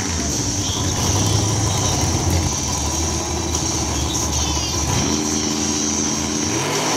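Fox-body Ford Mustang drag car's engine idling with a deep low rumble near the start line. About five seconds in the revs are held up steadily, then drop away near the end.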